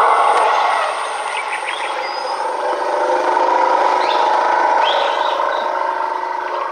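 Background music of sustained, layered chords held steadily, with a few faint short chirps above it.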